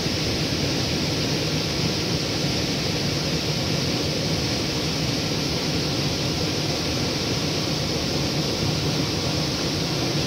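Steady rush of flash-flood water pouring down a rocky wash.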